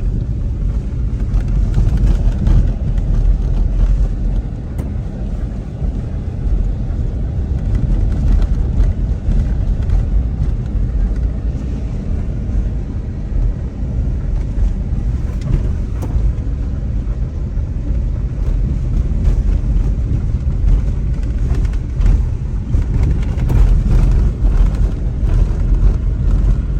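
Car driving along a rough road: a steady low rumble of engine and tyres.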